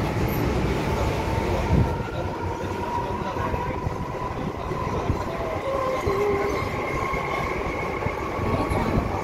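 MTR M-Train electric multiple unit pulling away from a station and gathering speed: the traction motors and their inverter give a steady whine that climbs slowly in pitch, with a second, higher whine coming in about halfway through, over the rumble of wheels on track heard inside the car.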